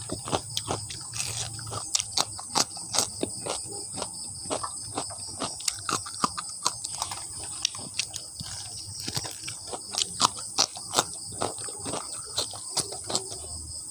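Close-miked eating: crunching and chewing of breaded fried chicken feet and raw cucumber slices, a quick irregular run of sharp crackling clicks with wet mouth sounds.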